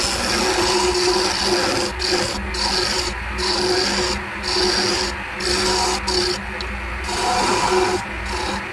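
A wood lathe spins a wooden spindle while a hand-held chisel cuts it, making a scraping, shaving sound in repeated strokes about once a second over the lathe motor's steady hum.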